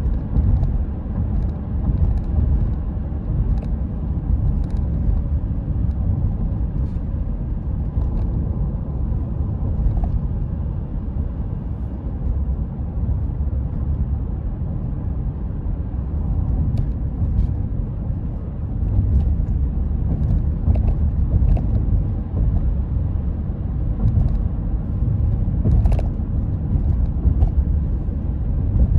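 Steady low rumble of a car driving at road speed, heard from inside the car: tyre and road noise with the engine underneath, with a few faint clicks, one sharper near the end.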